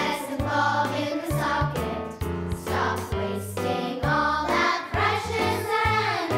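Children's choir singing a song in unison with instrumental accompaniment, a bass line moving underneath the voices.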